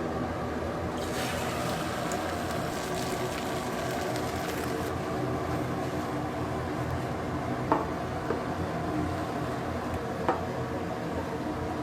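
A steady machine hum with a liquid, bubbling noise under it, and a few light clicks of utensils later on.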